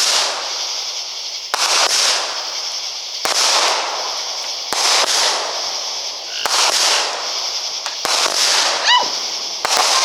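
Consumer fireworks repeater cake firing: six sharp reports about a second and a half apart, each followed by a long hiss.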